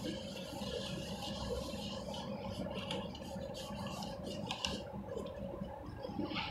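A wet cellulose sponge squeezed and scrubbed by hand in a plastic tub of soapy water: an uneven stream of wet squeezing, sloshing and crackling suds.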